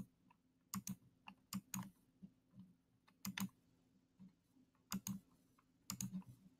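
Computer mouse clicking: a handful of sharp clicks, several as quick press-and-release pairs, spaced irregularly about a second apart, over a faint steady low hum. The clicks are the notes being picked on an on-screen xylophone, whose tones are not heard.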